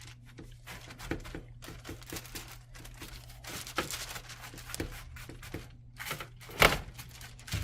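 Gloved hands pressing and spreading a sticky chocolate, peanut butter and rice cereal mixture on a wax-paper-lined cookie sheet: soft, irregular crinkling and crackling, with one louder knock near the end. A faint steady electrical hum lies underneath.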